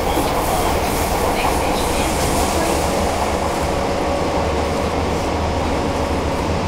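Fukuoka City Subway 1000 series train running at speed, heard from inside the passenger car: a steady rumble of wheels on rail with a steady hum and some rail-joint clatter.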